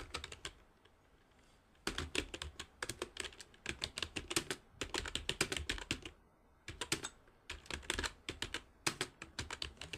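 Rapid typing on a computer keyboard: quick runs of key clicks starting about two seconds in, with one brief pause a little past the middle.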